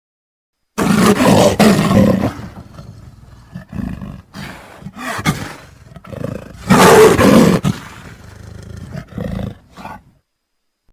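Recorded animal roar sound effects: a loud roar about a second in and another around the middle, with quieter, broken growls between and after them.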